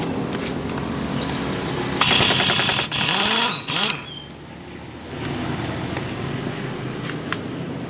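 Impact wrench rattling as it spins off a CVT pulley nut on a Suzuki Nex scooter, in loud bursts from about two to four seconds in, over a steady machine hum.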